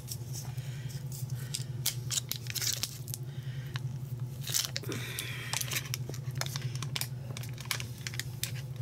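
A stick of butter being cut in half in its paper wrapper: scattered knife clicks and paper rustling over a steady low hum.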